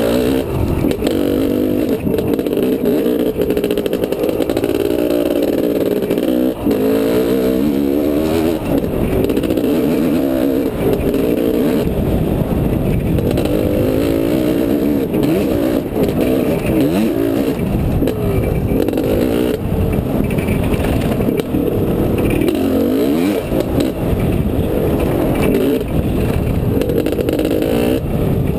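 Honda CR500 two-stroke single-cylinder dirt bike engine running under load, its pitch constantly rising and falling with the throttle, heard through a helmet-mounted camera.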